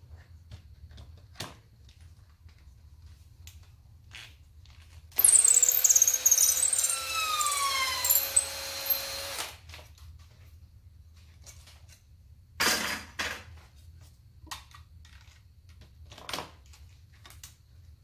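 Power drill running in reverse for about four seconds, starting about five seconds in, twisting the copper-coated aluminum center core out of the copper tube of a cell-tower coax jumper: a steady whine with high squealing tones that slide down in pitch. Two shorter bursts of noise follow a few seconds later.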